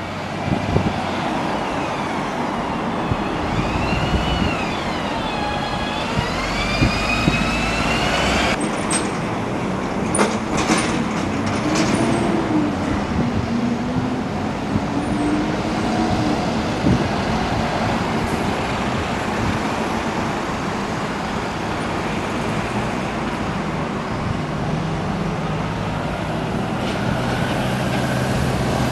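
Diesel buses running round a roundabout, with a steady rumble of engines and passing road traffic. A whining tone rises and falls in the first third, and a few short, sharp sounds come about nine to twelve seconds in.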